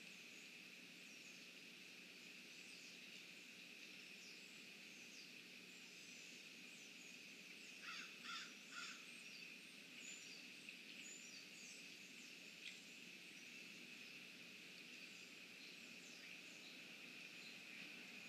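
Faint pond ambience: a steady high-pitched drone with scattered small-bird chirps, and three harsh, caw-like bird calls in quick succession about eight seconds in.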